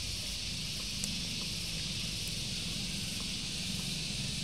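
Steady outdoor background ambience: an even high hiss with a low rumble beneath it and no distinct event.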